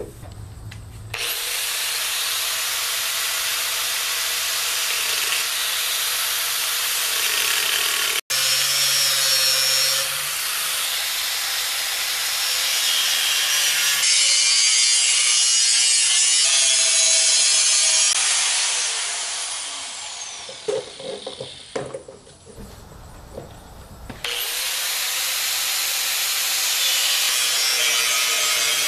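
Angle grinder with a cutoff disc cutting into the steel shell of a 20-pound propane tank, a loud, steady, hissing grind while cutting the tongue slots of a tank drum. It starts about a second in, drops away for a few seconds near the end, then starts again.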